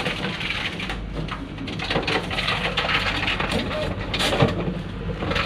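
Background voices over a steady low mechanical hum, with one short clatter about four seconds in.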